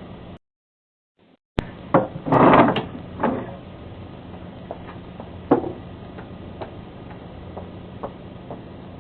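Knocks, scuffs and a louder rustling clatter of someone handling things on a porch, heard through a doorbell camera's microphone over its steady hum. The sound drops out entirely for about a second near the start, then the loudest clatter comes about two seconds in, with lighter knocks and ticks after.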